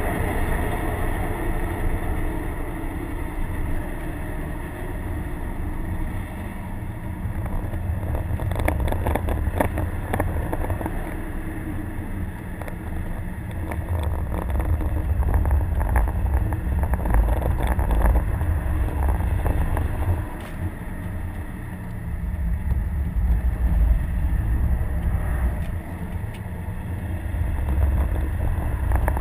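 Inside the cabin of a 2011 Subaru WRX driven hard: its turbocharged EJ255 flat-four engine running, getting louder and quieter in turns, over a heavy low rumble. A cluster of sharp clicks comes about nine seconds in.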